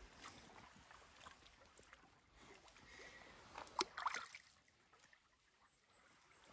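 Faint stream water with a brief small splash about four seconds in, a hand dipping into the shallow water to grab a caught brown trout.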